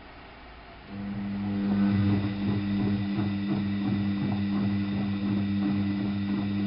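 Alaska WA8200 E washing machine starting a steady electric hum about a second in, with water gurgling through it.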